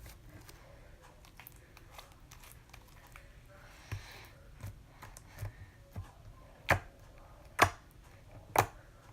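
Clear slime being poked and squeezed by hand, giving small sticky clicks and pops, with three louder pops about a second apart near the end.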